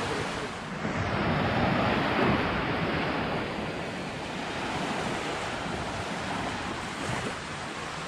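Small Mediterranean waves washing onto a sandy shore, mixed with wind on the microphone; the wash swells to its loudest about two seconds in, then settles.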